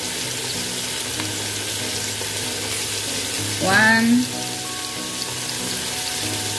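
Chicken pieces and sliced onions sizzling steadily as they fry in oil in a pot. About three and a half seconds in, a short rising vocal sound stands out above the sizzle.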